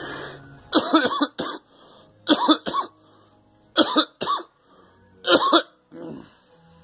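A person coughing repeatedly, in four or five short bouts of one to three harsh coughs each, about a second and a half apart.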